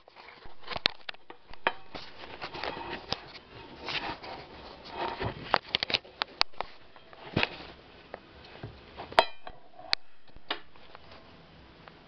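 Handling noises: irregular clicks, knocks and short rustles from a round tin and its packaging being handled, with one sharper click about nine seconds in that rings briefly.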